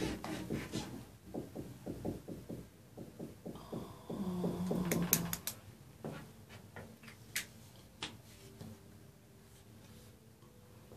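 Dry-erase marker writing on a whiteboard: a run of short, quick strokes over the first five seconds, with a brief low hum about four seconds in. A few faint clicks follow.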